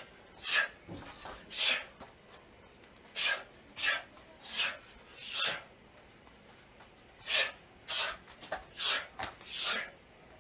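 Short, sharp hissing exhalations, one with each Muay Thai strike of a jab, elbow and knee combination. About ten come in loose groups.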